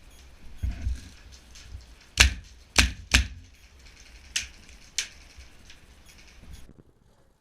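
Airsoft rifle firing five single shots, sharp separate cracks spaced irregularly over about three seconds, the first three loudest.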